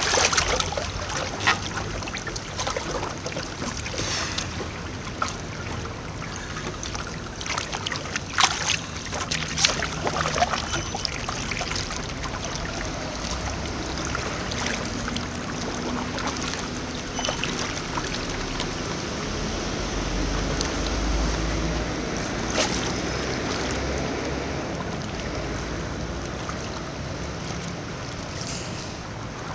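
Kayak paddle dipping and splashing in calm river water, with a few sharper splashes in the first ten seconds or so, over steady lapping water and wind on the microphone.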